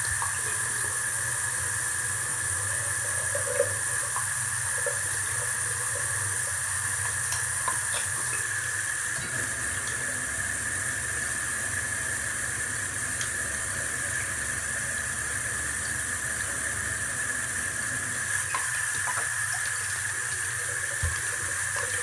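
Tap water running steadily into a sink while slime-covered utensils are washed under it, with a few light knocks of the items against the sink.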